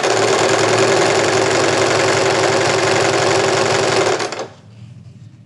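Electric domestic sewing machine running at a steady speed, stitching a bias strip closed around piping cord, then stopping about four and a half seconds in.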